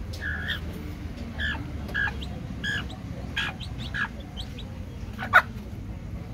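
Domestic chicks peeping: a string of short, high, falling peeps, about seven in all, with the loudest peep about five seconds in.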